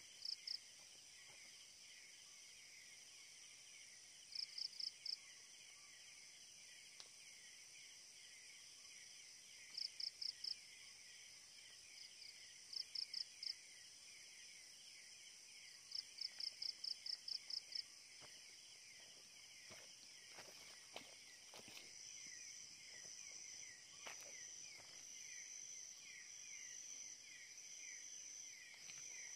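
Night insect chorus: a steady high chirring trill, broken every few seconds by short groups of rapid, louder high chirps, the longest a run of about eight a little past the middle. In the last third a thin high insect tone comes and goes, with a few faint ticks beneath.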